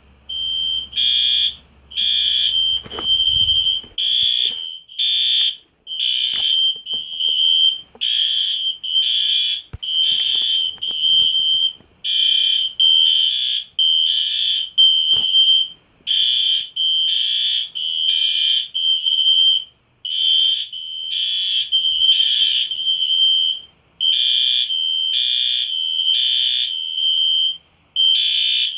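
System Sensor SpectrAlert fire alarm horns, two Classics and an Advance, sounding together. Loud, high-pitched horn blasts repeat in overlapping pulses, with a short break every four seconds in the temporal-three evacuation pattern.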